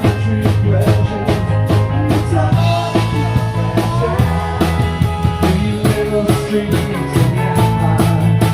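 Live rock band playing a song, with a steady drum beat and sustained bass guitar notes under other pitched instruments, some of which glide in pitch.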